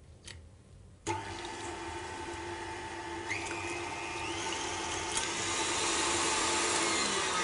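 KitchenAid Artisan stand mixer switched on about a second in, its motor driving the wire whisk to beat eggs with sugar and vanilla. The steady motor whine steps up in pitch a little after three seconds as the speed is turned up, and grows gradually louder as the mixture is whipped pale and thick for a sponge cake.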